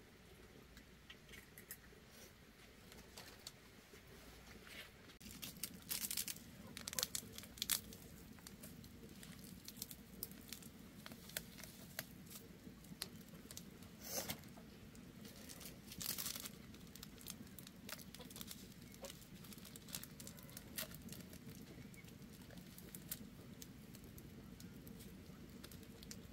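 Boiled bamboo shoots being peeled by hand: soft, irregular tearing and crackling as the husk layers are stripped off, with a few louder snaps.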